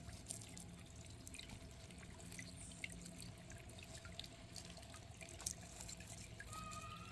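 Small solar-powered planter fountain running: a faint, steady splashing of water with scattered drips pattering back into the basin.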